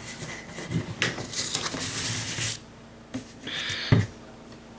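Objects being handled: a rustle lasting about a second and a half, a shorter rustle, then a single knock near the end.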